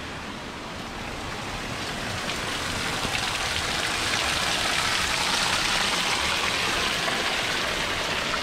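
Thin stream of water seeping out of a rock wall and falling from a ledge, splashing steadily onto the rocks below; the splashing grows louder about a third of the way in. The water is forced through the rock by the rivers dammed up behind Great Falls Dam.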